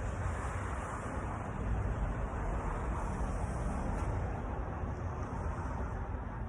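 Steady outdoor background rumble, heaviest in the low end, with no distinct sounds standing out.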